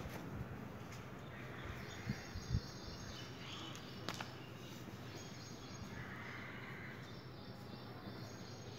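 Faint background ambience: a steady low hum and hiss, with faint high chirping now and then and two or three soft knocks.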